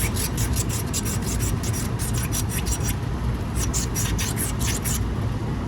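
Refrigerant line being sanded by hand, quick back-and-forth rubbing strokes at about four a second, with a short pause about three seconds in, over a steady low rumble.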